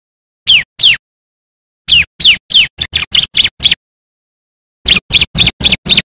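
A bar-winged prinia (ciblek) singing in bursts of sharp, high notes, each sliding down in pitch. It gives two notes, then a quicker run of about eight, then five more, with dead silence between the groups.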